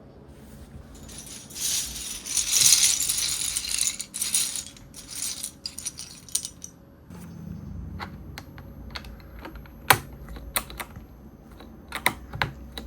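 Plastic keycaps clattering for a few seconds as they are handled, then a series of separate sharp clicks as keycaps are pressed onto mechanical keyboard switches.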